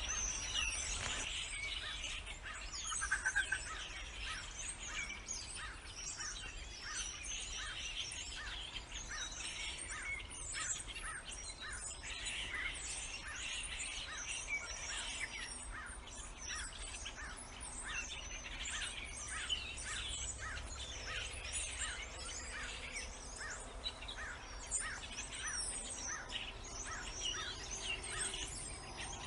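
Many birds chirping and calling together in a dense, continuous chorus, with one short call repeating about twice a second beneath it and a brief louder burst of calls about three seconds in.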